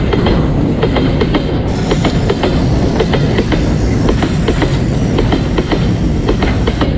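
Electric toy trains running on plastic track: a steady motor rattle with a rapid, irregular clicking of wheels over the track joints.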